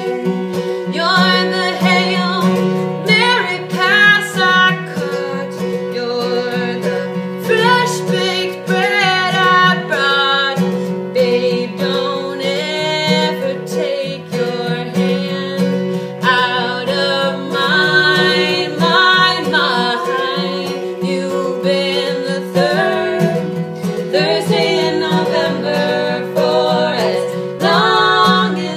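Acoustic guitar played as an accompaniment while two women sing a song together.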